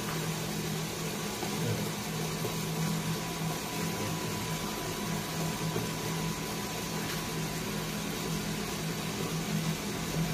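Small electric coffee roaster running at the start of a roast, loaded with 200 g of beans: a steady motor hum over an even fan-like whoosh.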